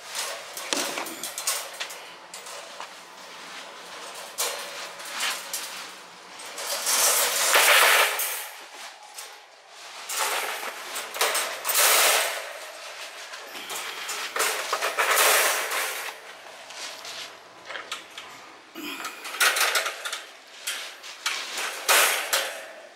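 Folding wire dog crate being collapsed: its wire panels rattle and clank against each other as they fold flat, in repeated bursts of metallic clattering.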